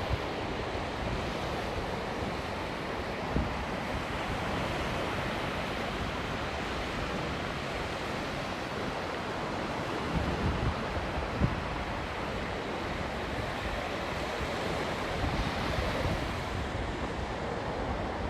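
Big sea waves breaking and washing on a beach, a steady roar of surf, with a few short low thumps near the start, around the middle and late on.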